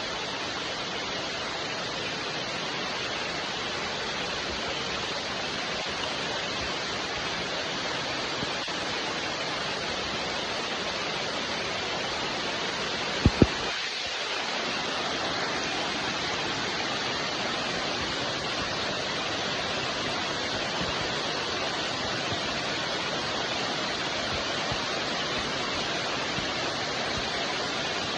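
Steady, even rain. About halfway through there are two sharp clicks in quick succession, and the rain briefly drops back.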